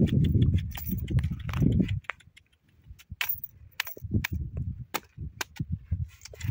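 Donkey's hooves clopping and crunching on a stony dirt track as it walks, with sharp irregular clicks of hoof on stone. A low rumble fills the first two seconds.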